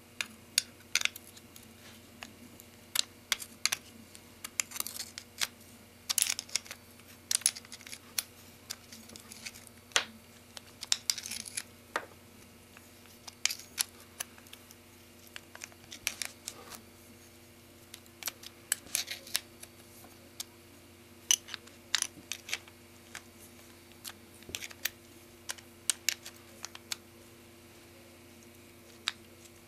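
A small wrench working the nut that holds a GM IAC motor to its metal bracket: irregular sharp metal clicks and clinks, over a faint steady hum.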